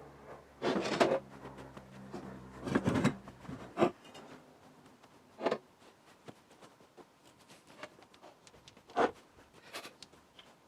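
A handful of sharp knocks and clunks, as of tools or parts being handled, spaced a second or more apart, over faint background music that stops about four seconds in.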